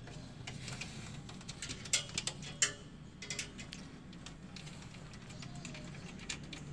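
Scattered light clicks and taps from handling a metal-framed wooden-slat panel, sharpest about two to three seconds in, over a low steady hum.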